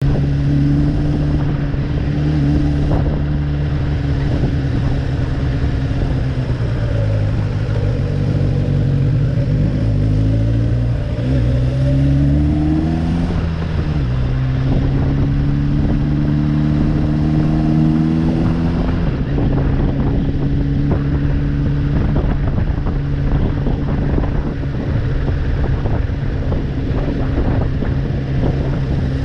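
Kawasaki GPZ900R's inline-four engine running steadily, then accelerating twice with a rising pitch, with a drop in pitch between the two like a gear change, before settling back to a steady pitch.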